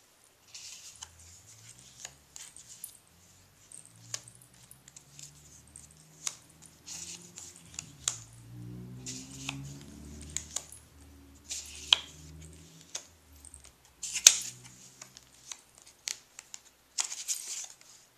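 Paper cards and clippings being handled: picked up, fanned, slid over one another and set down on a stack, with crisp rustles and light taps. The sharpest tap comes about fourteen seconds in.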